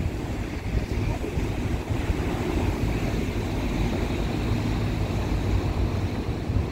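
Wind buffeting the microphone over choppy water, with the steady drone of a rigid inflatable boat's outboard motor running at speed.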